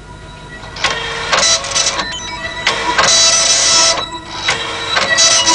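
Dot-matrix computer printer printing. The print head buzzes through a run of passes lasting half a second to a second each, with brief pauses between them, the longest pause about four seconds in.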